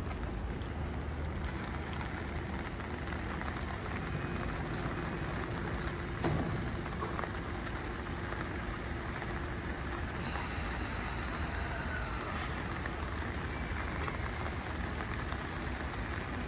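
A JR East E235-1000 series electric commuter train rolling slowly along a station platform: a steady low rumble and hiss, with one short click about six seconds in.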